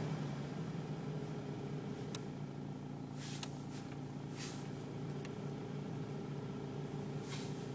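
Steady hum of an Opel Astra G with its heater blower running, broken by a few short, scattered taps and rattles from the heater area: the intermittent knock that comes and goes with the fan setting.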